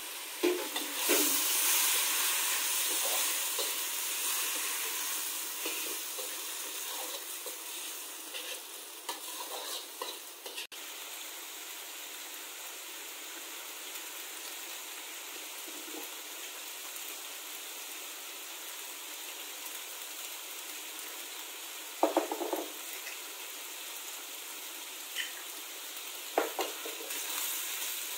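Stir-fried macaroni, carrot and cherry tomatoes sizzling in a hot wok while a slotted metal spatula stirs and scrapes them. The sizzle is loudest over the first several seconds and settles to a steady lower sizzle. Two sharp scrapes or knocks of the spatula on the wok come in the last third, and the sizzle picks up again near the end.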